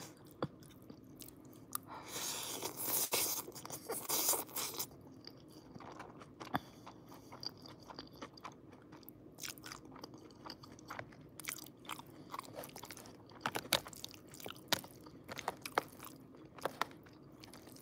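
Close-up eating sounds of long pasta noodles in cream sauce: about two seconds in, a few seconds of slurping noodles, then soft chewing with scattered wet smacks and clicks.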